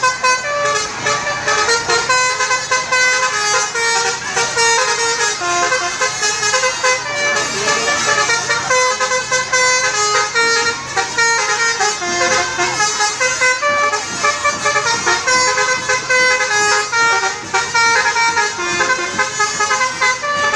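Telolet horn, the multi-tone bus horn, playing a fast melody of short toots at changing pitches, phrase after phrase.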